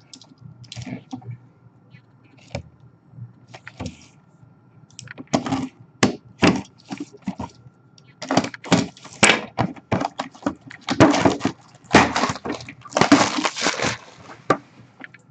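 Cardboard box being slit with a box cutter and pulled open: irregular knocks at first, then a dense run of sharp scrapes, rips and clicks through the second half.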